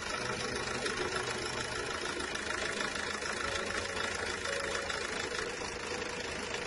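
Renault 2.0 dCi four-cylinder common-rail diesel engine idling steadily, with its piezo injectors' return lines disconnected into bottles for a back-leak test.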